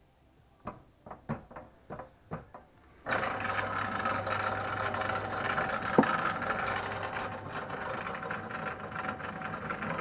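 A few sharp metal knocks, then about three seconds in a pillar drill starts and runs steadily, its bit drilling into a steel plate clamped in a machine vice.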